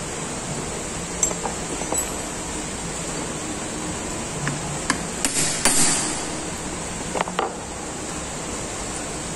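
Sharp metal clinks and knocks as a lathe's tailstock drill chuck and drill bit are handled with a metal tool, the loudest cluster about five to six seconds in and two more knocks near seven seconds. Under it runs a steady hiss of heavy rain.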